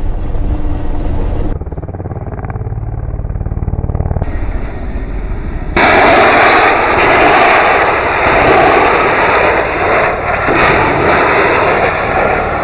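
Attack helicopter's turbines and rotor running, heard in short edited cuts. About six seconds in, a loud, steady rushing noise sets in as helicopters fire salvos of unguided rockets.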